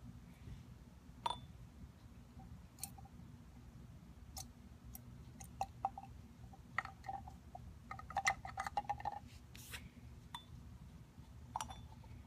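Small plastic clicks and taps of a syringe against a catch can and a plastic oil-sample bottle as blow-by oil is drawn out and squirted into the bottle, with a quick run of clicks around eight to nine seconds in, over a low steady hum.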